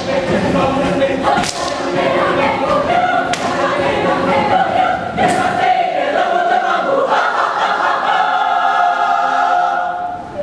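Mixed university choir singing in close harmony, with three sharp percussive hits about two seconds apart in the first half. From about six seconds in, the choir holds long sustained chords.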